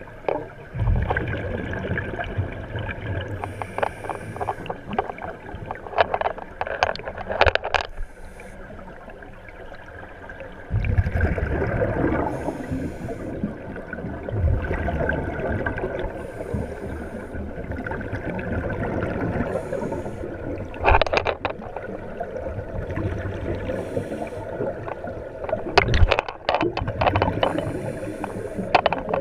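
Scuba breathing heard underwater: long stretches of bubbling from exhaled air, with quieter pauses between breaths and a few sharp clicks.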